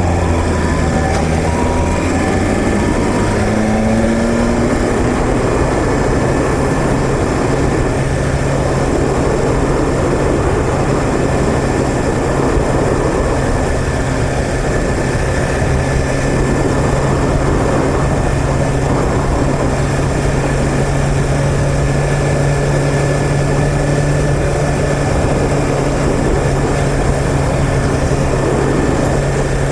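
2021 BMW S1000RR's inline-four engine running while the motorcycle is ridden, its note rising in the first few seconds and then holding steady at a cruise.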